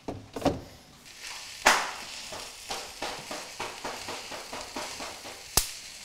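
Cooking clatter at a stove: a utensil knocking against a pan. There are sharp knocks about a second and a half in and again near the end, with a run of lighter taps about three a second between them.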